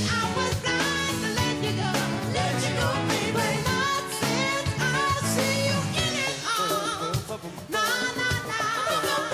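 A band playing 1970s disco music, with singing.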